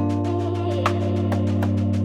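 Background music: sustained chords over a steady beat of light percussive ticks.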